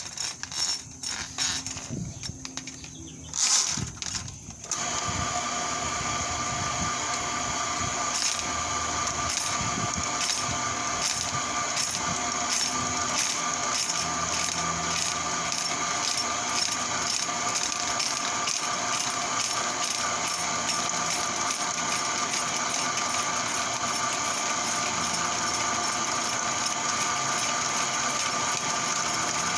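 Motorized sewer drain-cleaning machine starting up about five seconds in after some clattering, then running steadily as its spinning cable is fed into the sewer cleanout, with a regular ticking about twice a second.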